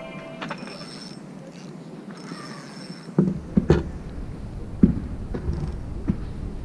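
A few light knocks and clicks, starting about three seconds in, of hands handling fishing line and tackle on a wooden table.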